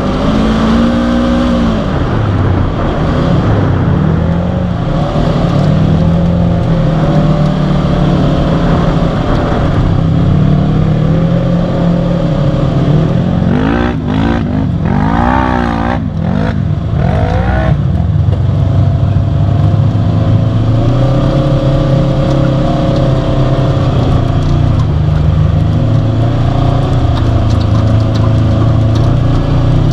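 Polaris RZR side-by-side's engine running under way, its pitch rising and falling as the throttle is worked. About halfway through come a few seconds of quick revs up and down.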